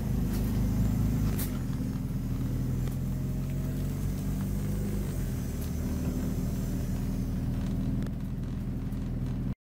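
Scania OmniCity N230UD double-decker bus's diesel engine running steadily at low speed, heard from the upper deck as a low hum. The sound cuts off suddenly just before the end.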